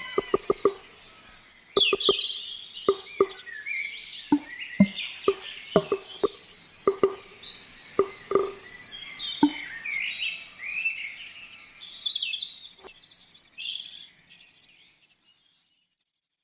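Dawn chorus of several songbirds, with short plucked guitar notes sounding over it through the first ten seconds or so. The birdsong then fades out about fourteen to fifteen seconds in.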